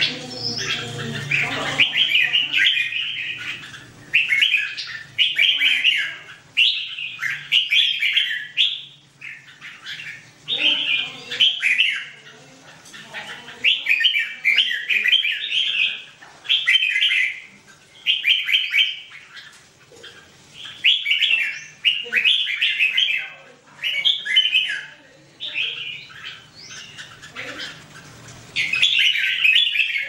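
Red-whiskered bulbuls singing: short, bright, warbling phrases that follow one another every second or two with brief pauses between them.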